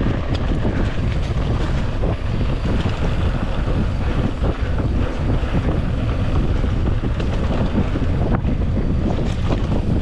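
Wind rushing over an action camera's microphone while riding a mountain bike on a trail, with a few short knocks and rattles from the bike.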